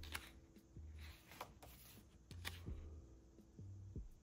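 Faint paper rustles and a few soft clicks as the pages of an album photo book are turned by hand.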